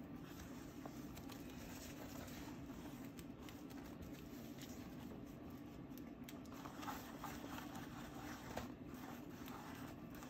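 Faint scratching and dabbing of a stiff old oil-painting brush working acrylic paint onto a sketchbook page, a little busier in the second half, over a steady low hum.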